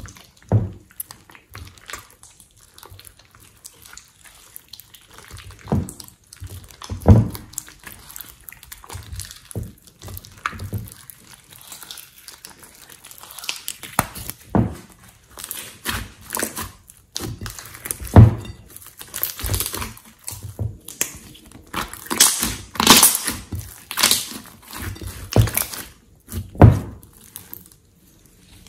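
Slime being squeezed, pressed and stretched by hand: irregular wet squelches and sticky pops with low thumps, and a denser run of sharp crackling clicks in the later part.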